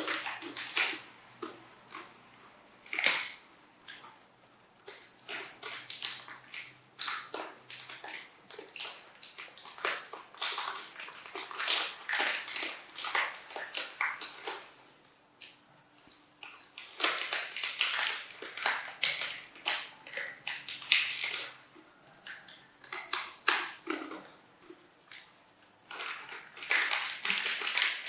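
Irregular crackling and crunching in short clusters with quiet gaps: a young macaque eating crunchy coated cracker peanuts, with the crinkle of foil snack packets being handled.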